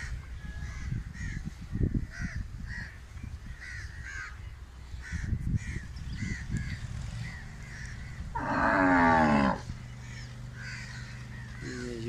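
A cow lows loudly for just over a second, about eight seconds in. Short bird calls repeat throughout, over a low rumble with a few dull thumps.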